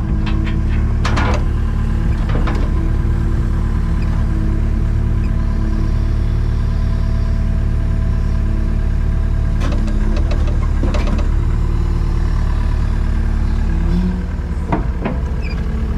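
Takeuchi TB285 excavator's diesel engine running steadily, with a few sharp clunks as boulders are handled, about a second in, near the middle and near the end.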